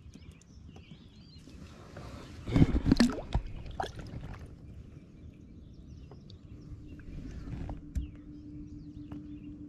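Water splashing as a largemouth bass is lowered into the lake by hand and released, with a short burst of splashing about two and a half seconds in and a few smaller splashes and drips after.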